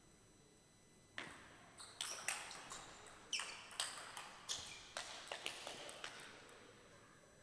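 Table tennis rally: the celluloid-type ball clicks sharply off the rubber-faced paddles and the table top in quick succession, about fifteen hits. The hits start about a second in and stop about six seconds in, when the point ends.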